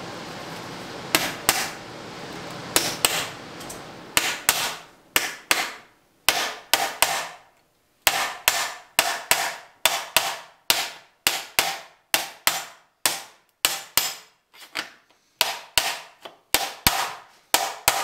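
Hand hammer striking sheet metal clamped in a bench vise, shaping a fender patch panel: a run of sharp metallic blows, about two a second, each ringing briefly. A steady rushing noise runs under the first few blows and stops about four seconds in.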